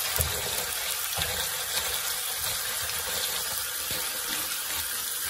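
Pork and coconut cream sizzling and bubbling steadily in a frying pan as it is stirred with a wooden spatula, with a few soft knocks of the spatula against the pan.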